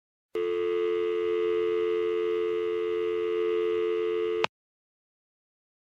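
Telephone dial tone: a steady, unbroken two-note tone lasting about four seconds, cut off abruptly with a click.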